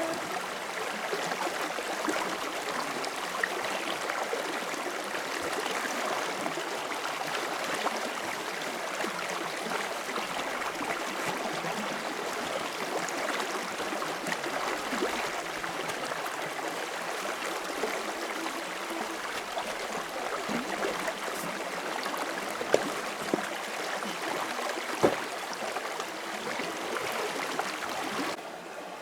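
Steady rushing of running water, like a stream, with a few sharp knocks near the end.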